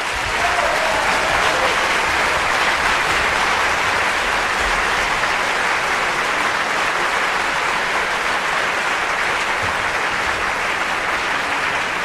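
Theatre audience applauding, a steady sustained ovation of many hands clapping.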